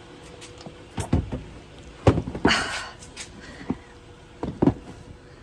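Scattered knocks and clunks inside a car, with a short rustle about halfway through, as someone moves about in the driver's seat.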